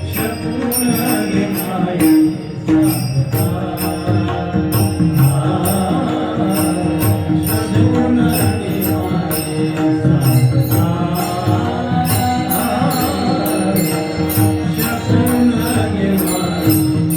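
Marathi kirtan music: a devotional song with a voice and instruments over a steady held drone. Rhythmic high metallic ticks keep the beat several times a second.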